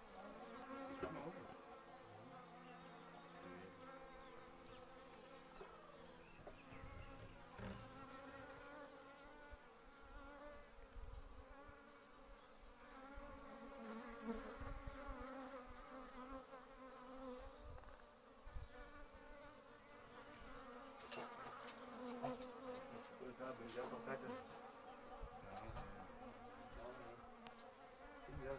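Several honeybees buzzing faintly, their overlapping wingbeat hums wavering up and down in pitch.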